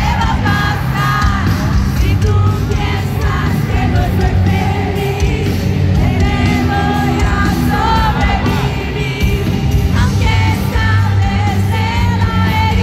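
Live pop music over a stadium sound system: a band playing with sung vocals, heard from among the audience, with crowd voices shouting along.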